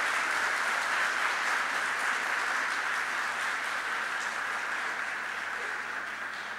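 Audience applauding steadily, the clapping slowly dying away near the end.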